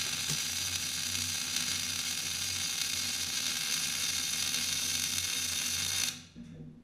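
MIG welding arc running steadily with a continuous crackling sizzle, stopping abruptly about six seconds in as the arc is broken.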